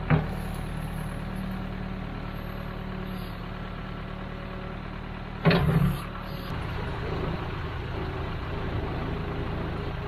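Case 580K backhoe's diesel engine running steadily while the boom is worked. A loud knock comes about five and a half seconds in as the steel bucket is brought down against the trenching bucket on the ground.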